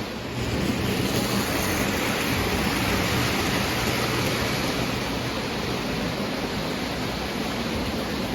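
O gauge toy train running on three-rail track, a steady rolling rumble that grows a little louder about half a second in.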